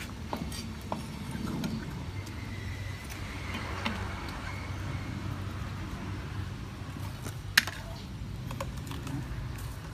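Cooking utensils clicking and tapping against an enamel soup pot, a few scattered light clicks and one sharper knock about seven and a half seconds in, over a steady low hum.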